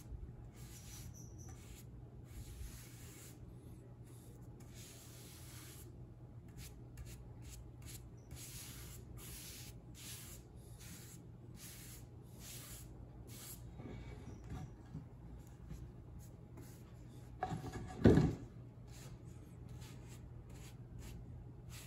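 Paintbrush stroking a thin coat of spar urethane along a painted wooden 2x4: soft, faint swishing strokes about one or two a second, thinning out after about 14 seconds, over a steady low hum. About 18 seconds in comes a brief, louder vocal sound, like a grunt.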